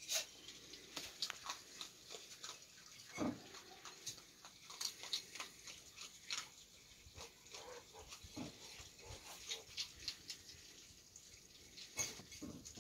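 Baby skunks and a raccoon eating cat food from dishes on a wooden deck: soft, irregular clicks and clinks of the dishes and chewing, with a couple of dull thumps.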